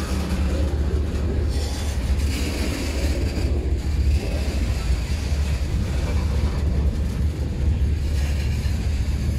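Freight train cars rolling past close by, a steady rumble of steel wheels on the rails.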